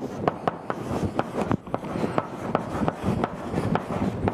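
Chalk writing on a blackboard: a quick run of taps and scrapes as the letters go down, about four or five strokes a second.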